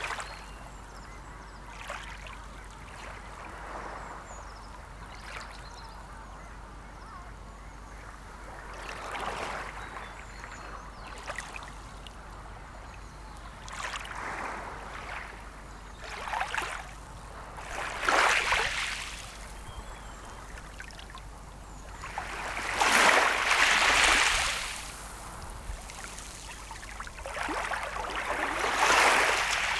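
Sea waves washing in on the shore, a steady hiss of water rising into a series of surges a few seconds apart. The largest comes about two-thirds of the way through and another builds near the end.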